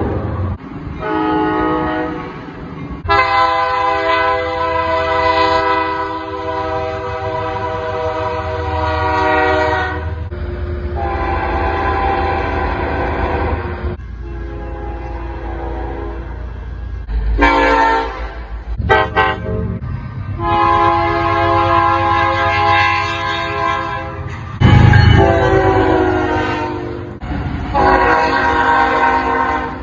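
Locomotive air horn sounding a series of blasts, several long ones and a couple of short ones, over the low rumble of the train.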